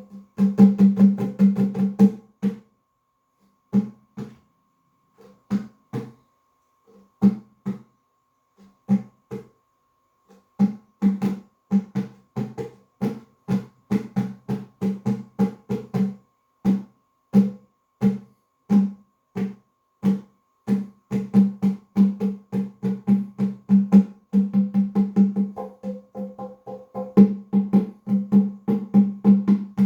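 Nyabinghi hand drumming: pitched single strokes, sparse and spaced out for the first several seconds, then settling into a dense, steady rhythm from about ten seconds in.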